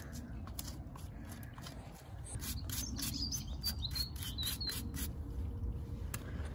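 A hoof pick scraping and brushing out a pony's hoof in quick strokes, about four a second, strongest in the middle. A small bird chirps a few times over the scraping.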